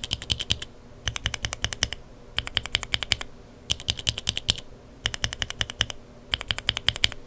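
Lubed linear mechanical keyboard switches with Kailh Burgundy stems being pressed and bottomed out in quick runs: six bursts of about nine clacks each, roughly one burst every second and a quarter.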